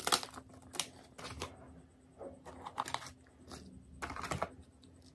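Jolochip foil chip packets and their cardboard boxes being handled: a series of short crinkles and taps scattered over a few seconds.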